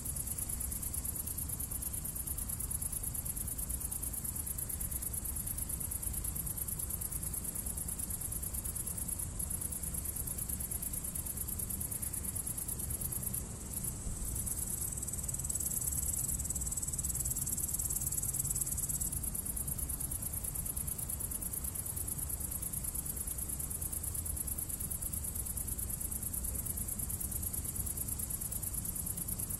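Insects, crickets or grasshoppers, chirping outdoors in a steady, very high-pitched rapid trill. A higher steady note joins for a few seconds mid-way, over a low rumble of wind or distant traffic.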